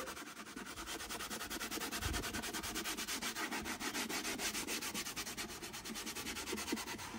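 Fine abrasive paper rubbed by hand over the bare wooden top of a viola in rapid, even back-and-forth strokes. It is the last sanding of the body in the white before the ground goes on.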